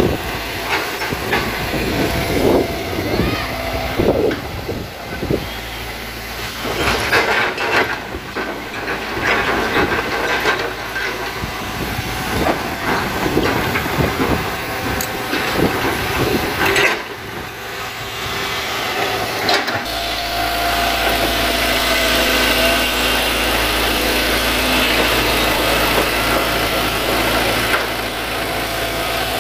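Hitachi crawler excavator's diesel engine working under load as the boom pushes against an oil palm trunk, with a run of sharp cracks and knocks from the trunk and the machine. About two-thirds in the knocks die away and the engine settles into a steadier, deeper running sound.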